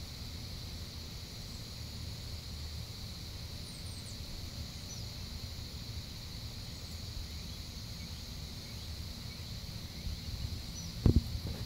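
Outdoor ambience with a steady, high insect drone, a few short bird chirps and a low background rumble. Two or three sharp knocks near the end.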